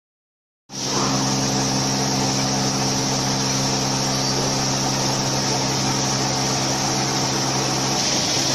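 Cormak UWF 110 Servo universal milling machine running, a steady machine hum with a constant high hiss over it, starting abruptly just under a second in.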